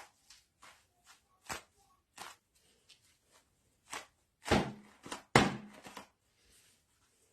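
Gloves and their packaging handled during an unboxing: a string of short rustles and scrapes, with two louder, longer ones close together a little past halfway.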